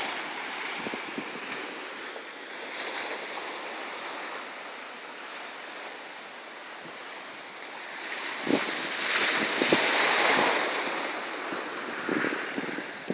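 Small waves breaking and washing up a sandy beach, mixed with wind noise on the microphone. The noise swells loudest for a couple of seconds about two-thirds of the way through.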